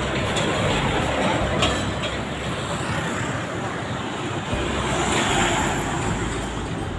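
Street traffic noise, swelling as vehicles pass close by about a second in and again about five seconds in.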